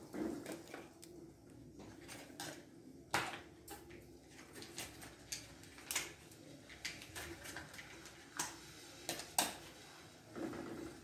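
Kitchen handling sounds at a stove: scattered light knocks and clicks of a pot, wooden spoon and packets being moved, the sharpest about three seconds in and a few more later on.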